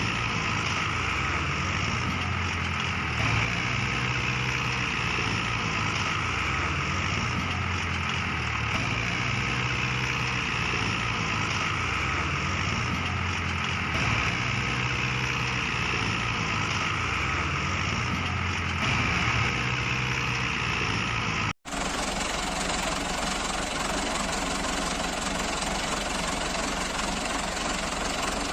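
A mini tractor's engine running steadily, with a brief break in the sound about three quarters of the way through, after which it carries on.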